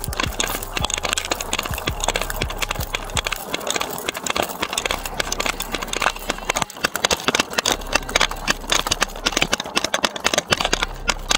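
Fast running footsteps on a concrete sidewalk, picked up by a chest-worn police body camera that jolts with each stride, with a dense clatter of clicks and knocks from the officer's gear throughout.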